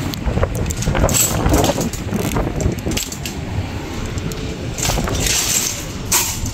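Wire-basket metal shopping carts rattling and clinking as one is pulled from a row of nested carts, with a run of sharp metallic clinks over a steady low rumble.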